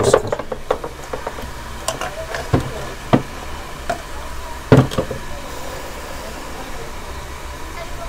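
Hammer tapping a punch to seat the stator coil in a table fan's metal motor housing: a dozen or so separate sharp knocks, closest together in the first couple of seconds, the loudest about five seconds in, after which the tapping stops.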